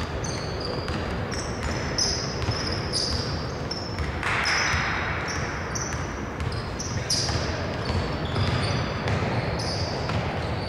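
Basketball game play on a hardwood court: a ball bouncing and many short, high-pitched sneaker squeaks throughout. A brief rush of noise comes about four seconds in.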